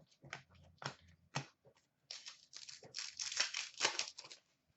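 Trading card packs and cards being handled: a few light clicks and snaps, then about two seconds of crinkling and rustling, like a foil pack wrapper being worked open and cards being shuffled.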